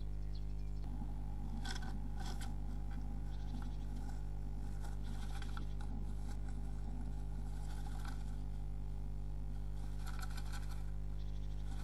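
A tit rustling and scraping nest material inside a nest box, in short scratchy bouts every few seconds, over a steady electrical mains hum from the box camera's microphone.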